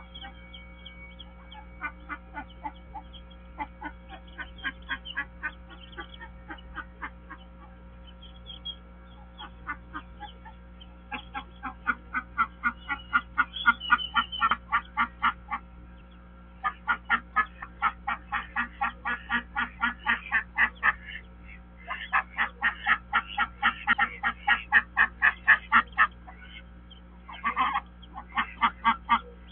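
A hen duck calling in rapid runs of short calls, about four a second, louder in the second half: the hen calling her newly hatched ducklings to lead them out of the nest. A steady faint hum runs underneath.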